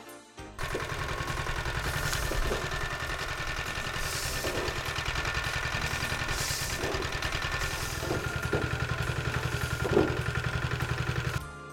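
Small stationary engine running steadily, driving a roller machine that korai sedge stalks are being fed through. A few brief louder crackles come as stalks pass between the rollers, the loudest near the end. The sound starts about half a second in and cuts off just before the end.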